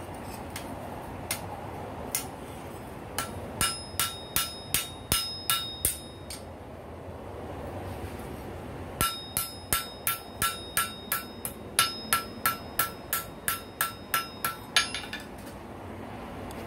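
Blacksmith's hand hammer striking hot rail-spike steel held in tongs on an anvil, each blow ringing. A few scattered blows, then two runs of steady strikes at about three a second with a pause of a couple of seconds between them, as the leaf is forged.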